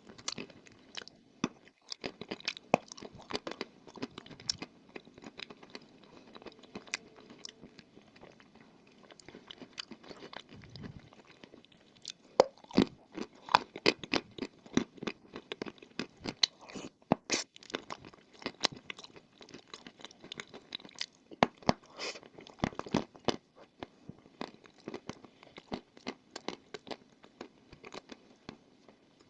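A person biting and chewing wet white chalk: dense, irregular crunches throughout, with louder bites in clusters about halfway through and again a few seconds later.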